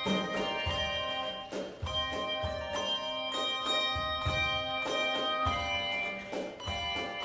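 Handbell choir ringing a piece: several handbells struck together in chords, their tones ringing on and overlapping as new strokes come in every half second or so.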